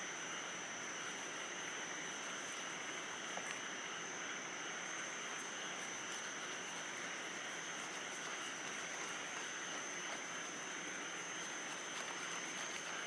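Outdoor ambience: an insect trilling at one steady high pitch, unbroken, over a continuous rushing background noise.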